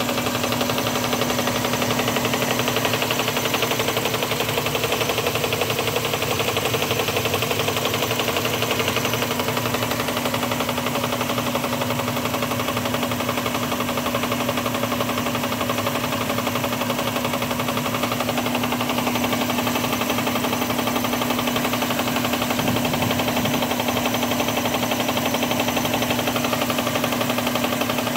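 1998 Subaru Legacy's boxer four-cylinder engine running steadily with a rapid, continuous knocking clatter over a steady hum. The clatter comes from a loose crankshaft pulley rocking on a worn keyway; the pulley and keyway needed to be replaced.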